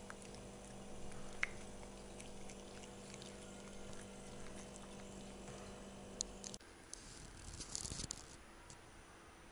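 Faint wet licking and small clicks of cats lapping food off a metal spoon, over a steady electrical hum. The hum cuts off about two-thirds of the way through, leaving quieter room tone with a brief patch of soft rustling and clicks.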